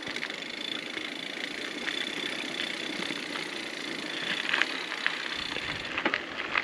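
Bicycle tyres rolling over a gravel track, with a steady high whine throughout and a run of crunching crackles about four seconds in.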